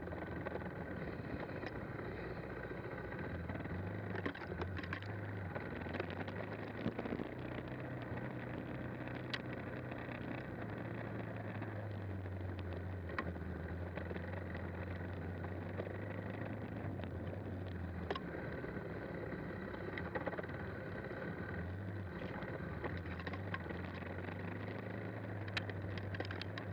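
KTM 390 Adventure's single-cylinder engine running at a steady low pace on a dirt trail. Its note rises and dips a little with the throttle, over tyre and wind noise, with a few short clicks and knocks.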